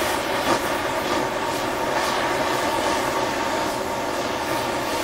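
Oxy-acetylene cutting torch flame hissing steadily as it heats a steel plate to get the cutting reaction going.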